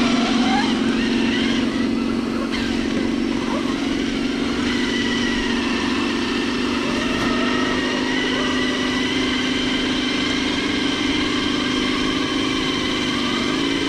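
Electric motor and drivetrain of a radio-controlled crawler truck whining steadily as it drives through grass, rising in pitch near the end as it speeds up.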